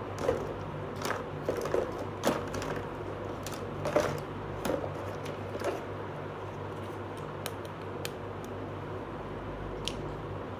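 Light clicks and taps of small plastic toy pieces being handled and set down, a few close together in the first four seconds and then sparser and fainter, over a steady low hum.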